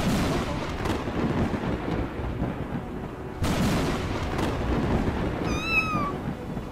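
Thunder with rain: a sudden rumbling crash at the start and another about three and a half seconds in. A kitten meows once near the end.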